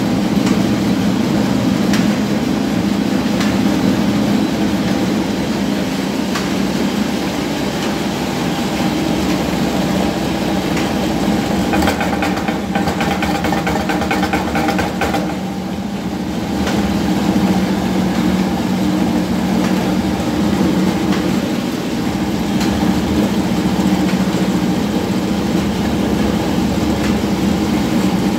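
Commercial masala grinding mill running steadily while dried bay leaves are hand-fed into its hopper: a loud, even mechanical drone with scattered clicks and rattles from the leaves being crushed.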